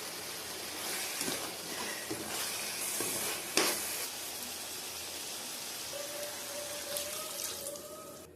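Chicken-feet curry sizzling and bubbling in a cooking pan, with one sharp clack about three and a half seconds in. A faint steady tone joins from about six seconds in as the sizzle dies down toward the end.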